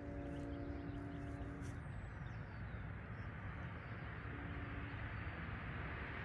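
A distant train horn sounds one long steady note near the start, and a shorter, fainter note about four seconds in, over a steady outdoor rumble.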